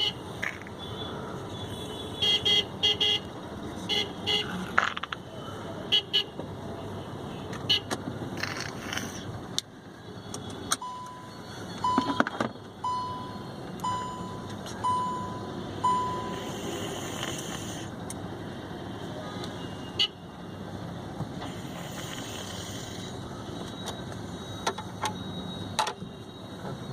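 A sleeping child snoring inside a vehicle over steady road noise. Traffic horns honk repeatedly in the first third, and six short electronic beeps sound about a second apart midway through.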